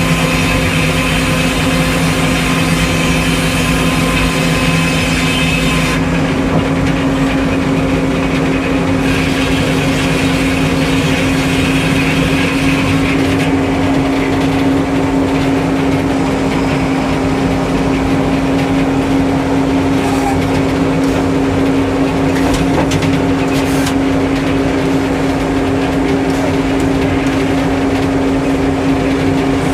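Sawmill engine running steadily, with a loud high hiss on top that drops away about six seconds in.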